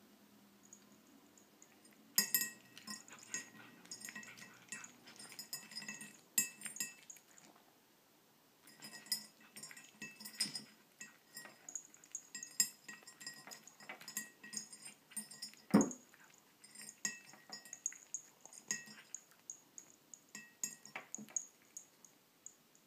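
A cat crunching dry kibble from a ceramic dish: quick, crisp clicks and clinks of food and teeth against the dish, pausing briefly near the middle. A single dull knock about two-thirds through is the loudest sound.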